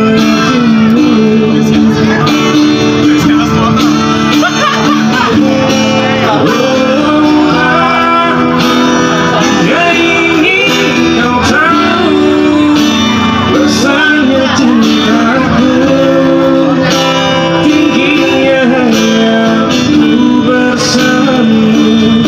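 A man singing with strummed acoustic guitar, a steady song with no break.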